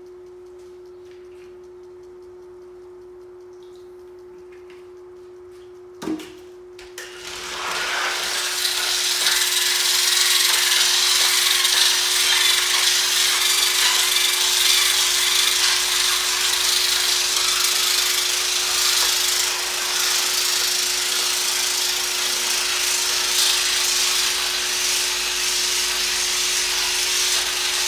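Electric car polisher with a coarse 50-grit diamond pad: a steady motor hum at first, a knock about six seconds in, then a loud gritty grinding from about seven seconds as the pad works the wet concrete countertop.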